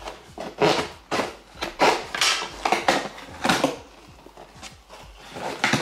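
Cardboard shipping box being opened: a series of short ripping and scraping sounds of packing tape and cardboard flaps, with rustling in between.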